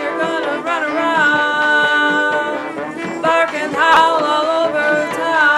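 A woman singing through a headset microphone, her voice sliding and wavering between notes, over a brass marching band playing.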